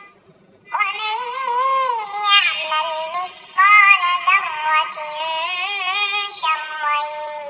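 A very high-pitched, synthetic-sounding voice chanting a Quran recitation melody in long, wavering, ornamented phrases: a cat-voice rendition of Quranic recitation. It comes in about a second in, after a short gap, with a brief break near the middle and a new phrase near the end.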